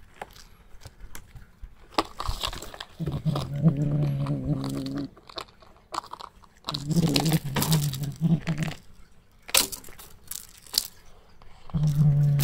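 Kitten growling low and steadily while guarding a toy mouse: three drawn-out growls of about two seconds each, the last starting near the end. Between them come crunching and scratching on the cardboard.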